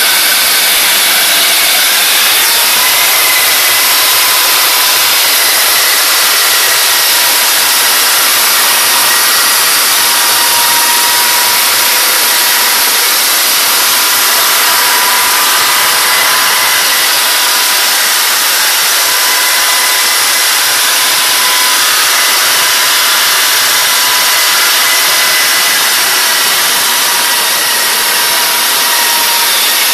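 Engine-generator set of a biomass gasifier power unit running steadily: a loud, even engine noise with a steady high whine over it.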